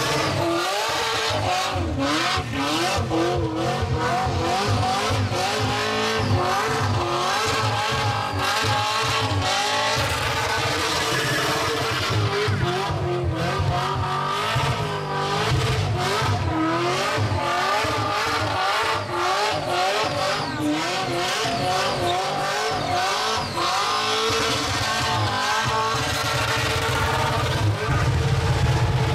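Car doing a burnout: the engine revs hard, its note rising and falling over and over, while the spinning tyres make a steady rushing screech against the pavement.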